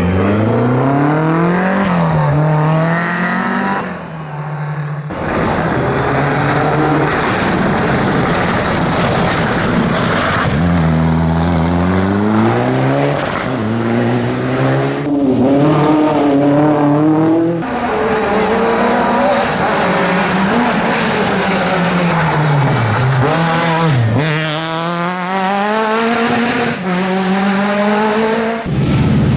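Historic rally car engines revving hard, the pitch climbing and dropping again and again through gear changes and lifts as the cars slide sideways, with tyre noise underneath. Several cars follow one after another, the sound changing abruptly between them.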